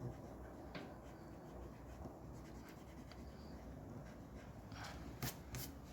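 Rubber eraser rubbing back and forth over paper, erasing pencil lines: a faint scratchy rubbing, with a few sharper strokes near the end.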